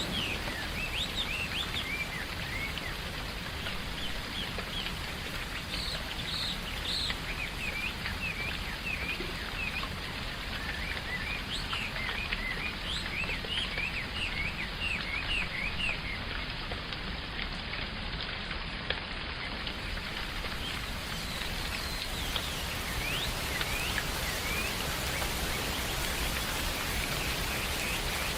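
Steady rain with birds chirping throughout, many short, quick chirps.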